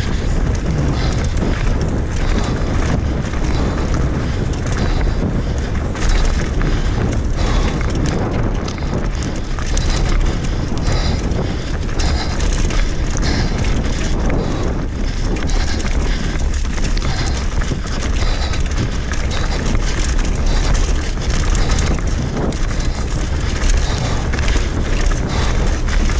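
Wind buffeting the microphone as a mountain bike descends a rocky dirt trail at speed. Tyres crunch over loose stones and the bike rattles over the bumps throughout.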